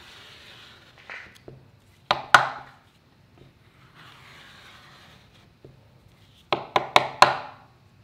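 Hand scraper scraping over a wooden cabinet door, lifting finish softened by chemical stripper, in soft scraping strokes. Sharp knocks of the scraper on the wood stand out, two about two seconds in and a quick run of four near the end, the loudest sounds.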